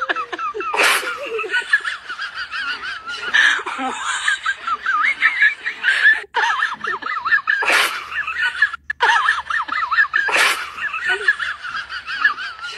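High-pitched, wavering laughter running on, broken four times by a short, sharp noisy burst.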